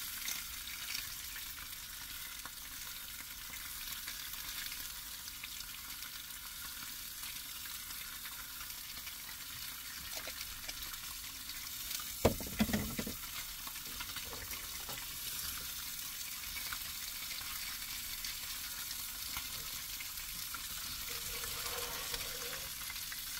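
Pejerrey fillets frying in olive oil and garlic in a pan, a steady sizzle, with one brief knock about halfway through.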